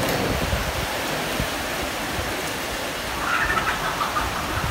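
Steady rushing noise, even and unbroken, with low rumbles underneath. From about three seconds in, a bird calls repeatedly over it.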